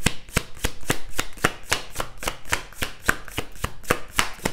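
A deck of tarot cards being shuffled by hand: the cards slap and click against each other in a steady rhythm, about four sharp clicks a second.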